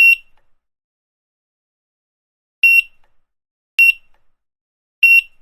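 Grocery checkout barcode scanner beeping four times at uneven intervals: short, high single-pitch beeps, each one marking an item scanned.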